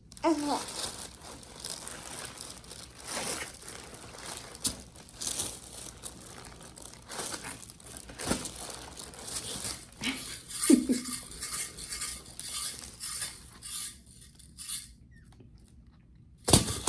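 Crinkling and rustling of something being handled, with many small clicks and taps; it stops about 14 seconds in. A single sharp knock comes near the end.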